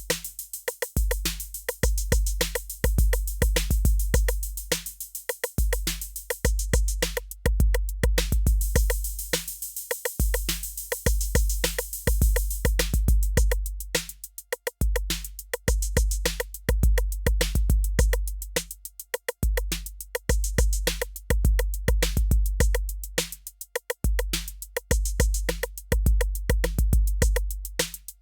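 Roland TR-8 drum machine playing a factory pattern on its 808 kit, unprocessed: a long, low 808 kick drum with quick high hi-hat ticks and short pitched hits in a steady repeating groove. A sustained hissy cymbal wash comes in for a few seconds near the middle.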